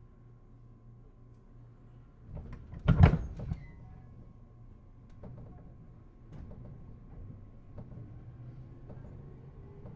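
Sliding passenger doors of a JR East 211 series electric train, heard from inside the car, closing with a loud thump about three seconds in and a smaller knock just after. A quiet steady electrical hum runs underneath, and near the end a faint whine rises slowly in pitch as the train begins to move.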